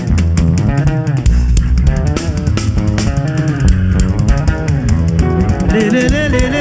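Live gospel band playing: a gliding guitar lead over bass guitar and drum kit, with steady drum and cymbal hits.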